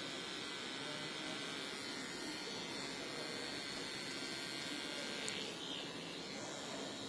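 Steady whirring hiss of an electric hair-salon appliance running, with a short high tick about five seconds in, after which the sound eases slightly.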